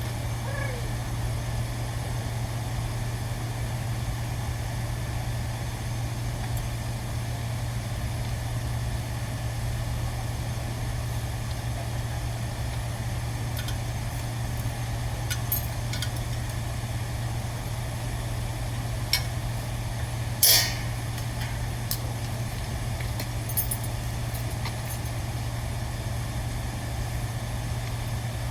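A steady low machine hum, like an engine or motor running nearby, with a few short sharp clicks in the second half, the loudest about two-thirds of the way through.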